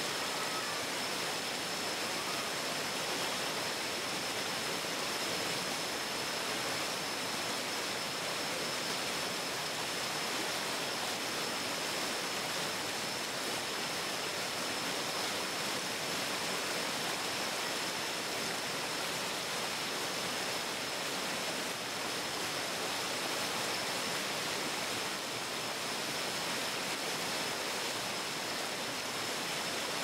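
Forest stream rushing steadily, a continuous even wash of water noise, with a thin steady high-pitched tone running over it.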